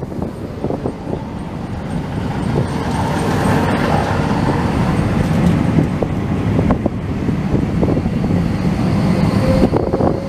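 Metro do Porto Eurotram light-rail vehicle passing close by on its rails: a rumble of wheels and running gear that builds over the first few seconds and holds, with a couple of sharp clicks and a brief high tone near the end.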